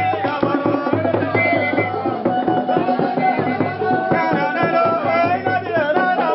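Music with drums and percussion, with wavering melodic lines over the beat.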